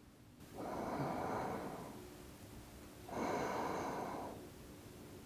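A person snoring as she sleeps: two drawn-out snores, each about a second and a half long and about two and a half seconds apart.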